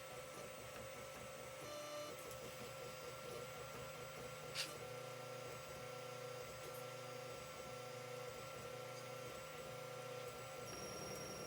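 Creality CR-10 3D printer running a print: its stepper motors whine in steady tones that shift and break as the print head moves, over a low hum, with one sharp click about four and a half seconds in.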